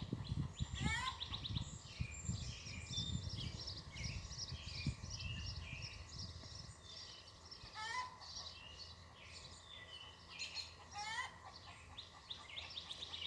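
Wild birds chirping and singing throughout, with a rising whistled call repeated a few times. Low rustling in the first several seconds.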